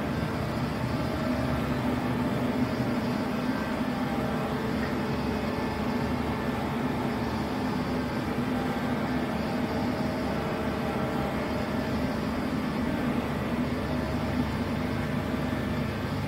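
CNC horizontal machining centre running idle under power: a steady machine hum with a low drone and no changes.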